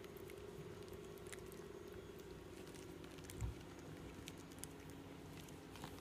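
Faint scattered ticks and shuffling from a pile of three-week-old puppies squirming against each other and the floor, with one soft thump about halfway through, over a steady low hum.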